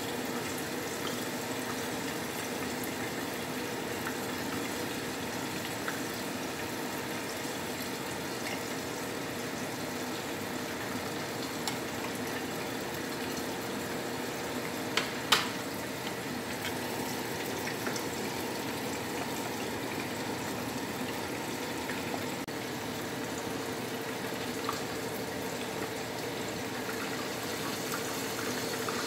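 A thick sauce simmering and bubbling in a pot on a gas stove, over a steady low hum. A metal spoon clinks against the pot twice about halfway through.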